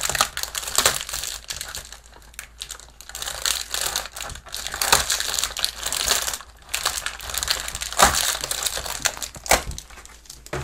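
Foil booster-pack wrappers crinkling as they are handled and sorted by hand, in irregular crackles, loudest about eight seconds in.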